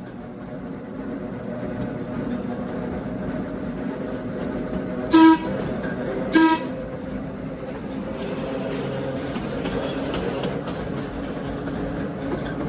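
Electric trolley car running along the track, with two short toots of its whistle about five and six and a half seconds in.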